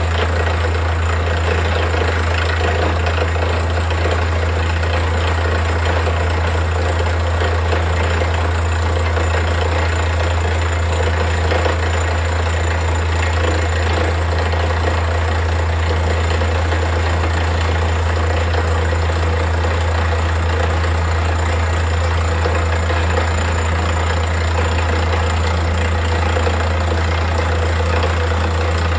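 Borewell drilling rig running steadily while it drills, its engine giving a loud, even, low hum with a constant mechanical rattle over it.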